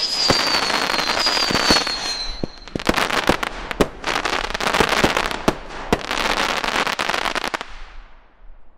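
Finale of a Stealth Fireworks Hope & Glory 36-shot fireworks cake. It opens with a high wavering whistle over crackling for about two seconds. Then comes a rapid run of bangs with dense crackle, which dies away in the last second.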